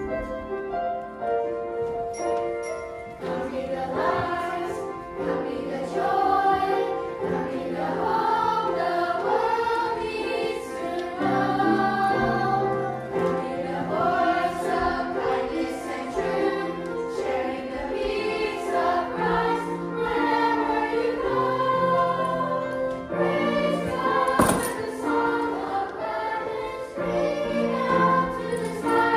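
Children's school choir singing a Christian choral song over an instrumental accompaniment. The accompaniment plays alone for about the first three seconds before the voices come in.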